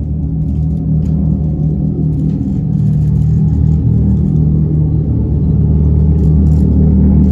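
Dodge Charger Daytona SRT Banshee's Fratzonic synthesized exhaust sound: a deep, steady engine-like rumble from the electric car, growing gradually louder.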